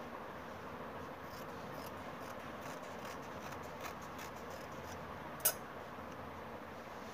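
Scissors snipping through folded checked fabric in a series of faint clicks, then one sharper clack about five and a half seconds in as the scissors are set down on the table.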